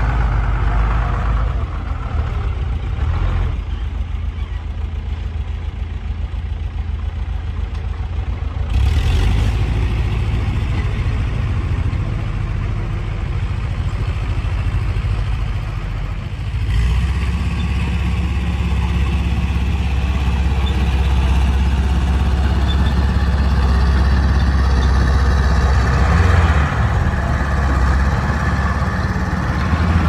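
Diesel engine of heavy earthmoving machinery running. It picks up about a third of the way in, then settles into a steadier, deeper drone around the middle.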